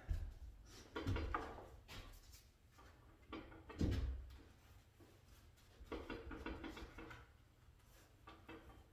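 Paint stripper being brushed onto a painted wooden door with a paintbrush: soft, scratchy bristle strokes, mixed with a few dull knocks, the loudest about four seconds in.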